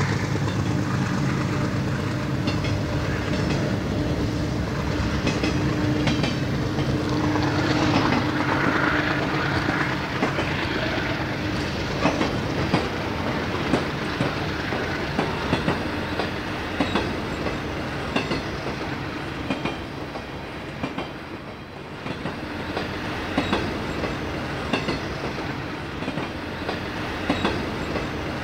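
HO-scale model train rolling past close by: a steady hum, with the wheels clicking over the rail joints and turnouts. The clicks grow sharper and more frequent in the second half as the autorack cars pass.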